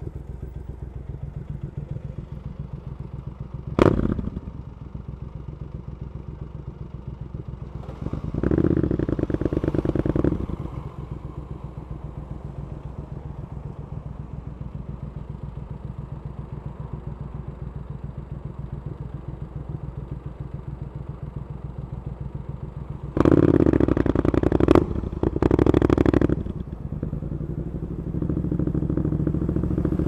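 Triumph Scrambler 900's parallel-twin engine through aftermarket Arrow exhaust pipes, heard from the rider's position. It runs low and steady, with a burst of throttle about eight seconds in and a louder one near the end broken by a brief dip, then builds again. A sharp knock sounds about four seconds in.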